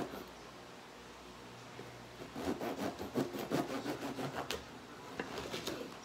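Bread knife sawing through a crusty loaf on a wooden cutting board. Quick back-and-forth rasping strokes begin about two seconds in, with one sharper click partway through.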